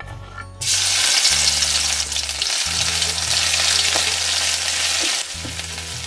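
Chopped ingredients dropped into hot oil in a metal wok and stirred with a wooden spoon. A loud sizzle breaks out suddenly about half a second in and drops to a quieter frying near the end.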